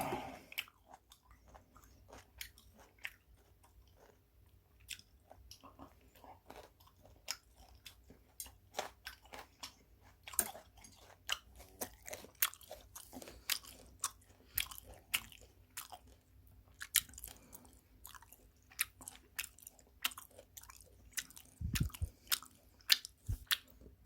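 A person chewing and crunching food close to the microphone, many short irregular crisp clicks: eating raw rockfish slices.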